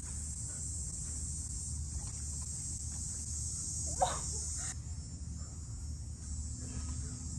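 Cicadas droning in a steady high-pitched buzz, which drops off abruptly a little before five seconds in. About four seconds in there is a short sharp sound, the loudest moment.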